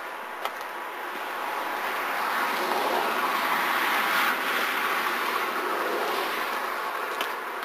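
A passing vehicle: its tyre and engine noise swells up to a peak about halfway through, then fades away.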